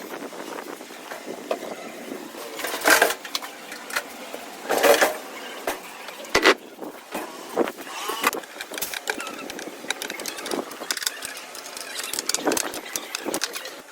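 Irregular knocks, clicks and clatter of tools and parts being handled while a washing machine is worked on, with a few louder bangs near the middle.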